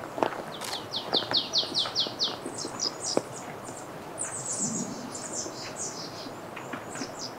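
Small songbirds calling: a quick run of about eight high chirps, each falling in pitch, followed by a stream of scattered high twittering notes. A couple of faint footsteps lie under them.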